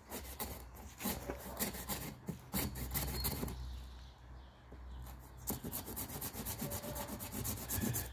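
Hand saw cutting through a walnut stump to cut it back before grafting, stroke after stroke. The strokes come quicker and more evenly in the second half.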